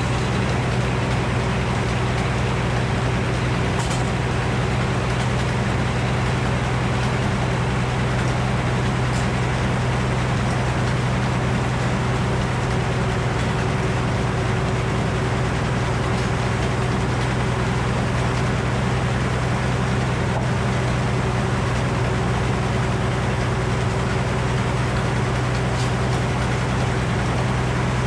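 Frick circular sawmill running with a steady, unchanging low drone as white oak is sawn into boards.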